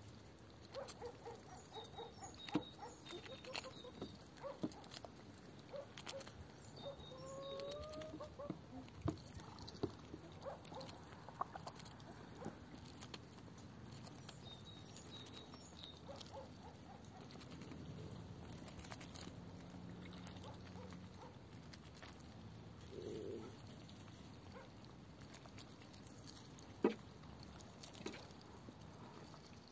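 Backyard hen and Muscovy ducks pecking at scattered tomatoes and greens: irregular soft taps and pecks, with occasional quiet clucks. A short rising call comes about eight seconds in, and one sharper tap near the end is the loudest sound.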